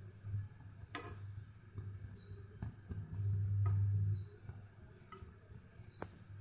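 A metal spoon stirring in a stainless steel saucepan, giving a few sharp clinks against the pan, over a low steady hum that swells for about a second midway. Three short, high, falling chirps are also heard.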